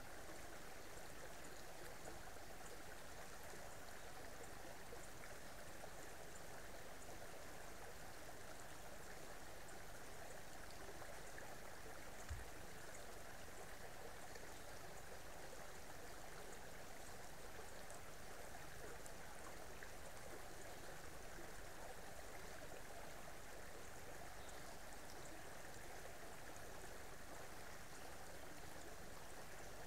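Creek water running steadily over its bed, with one brief low thump partway through.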